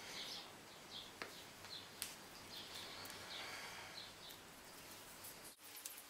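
Quiet handling noise: faint rustles and a couple of small clicks as a roll of insulation tape is wrapped around the end of bicycle handlebar tape, with faint bird chirps in the background.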